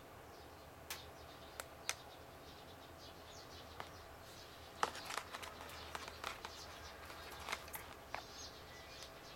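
Faint scattered clicks and handling noise from a hand-held Omron HV-F128 low-frequency therapy unit: three sharp clicks in the first two seconds, then a denser run of small clicks and rustles about halfway through, over a low steady hum.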